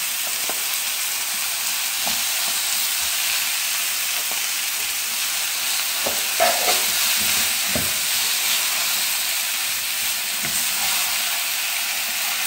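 Onion-tomato masala sizzling steadily in a frying pan as boiled potato chunks are stirred and broken up into it with a spatula, with a few knocks of the spatula against the pan.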